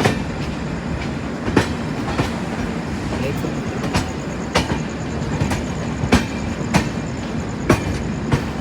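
Passenger train running on the rails: a steady rumble with sharp, irregular clacks of the wheels over rail joints and points, heard from on board.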